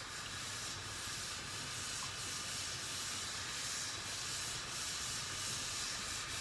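Steady soft sizzling hiss of green tea soba noodles still frying on a hot plate as they crisp.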